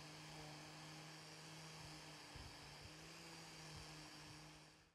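Angle grinder with a sanding disc running steadily, faint, as it sands a wooden sword handle; the sound fades out at the very end.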